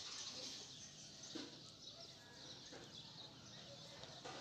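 Faint background of birds chirping, with a few soft clicks about a second and a half apart.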